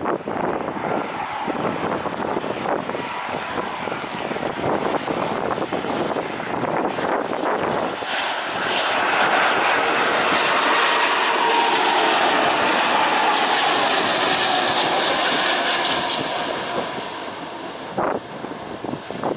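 Airbus A330 jet airliner passing low on landing approach with gear down. The engine whine and rushing air swell about eight seconds in, peak with a falling pitch as the jet goes by, then fade.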